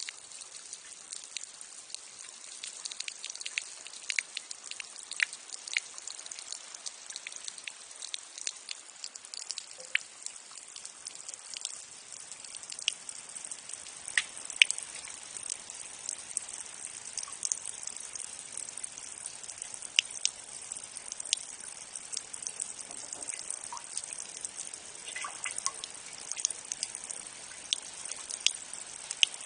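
Rainwater dripping and trickling from a downspout after rain: a steady light water hiss with many irregular sharp drips.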